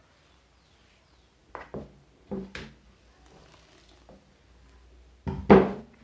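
Spatula knocking and scraping against a plastic mixing bowl while stirring flour into a wet batter: a few short knocks about a second and a half in, and a louder pair near the end.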